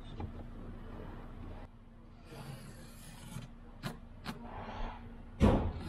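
Hand tools being handled against fibreglass and timber: a rubbing scrape, two sharp clicks, then a louder knock near the end.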